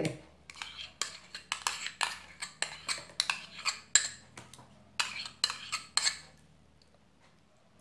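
A metal spoon scraping margarine out of a measuring cup into a plastic bowl: a quick run of clicks, taps and scrapes of spoon against cup, stopping a little past six seconds in.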